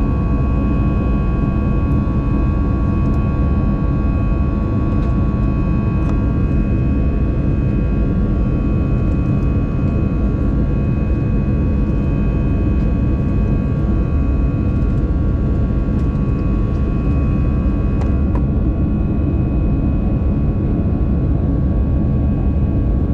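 Cabin noise of an Airbus A320 in its climb-out: a steady low rumble from the engines and airflow, with several steady high whining tones on top. One of the whines drops away about six seconds in.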